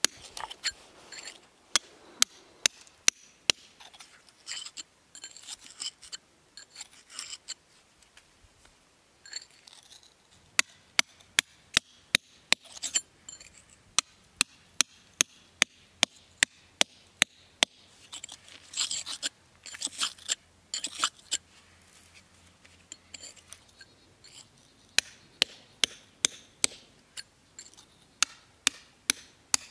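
Steel hammer striking a hand chisel into a stone block, sharp metallic taps at about two to three a second with a few short pauses. A few scratchy scraping sounds of the chisel on stone come in between strokes, mostly past the middle.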